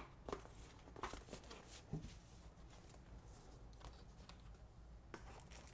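Faint handling of cardboard game pieces: a few soft taps and light rustles as card sheets and decks of cards are moved and set down.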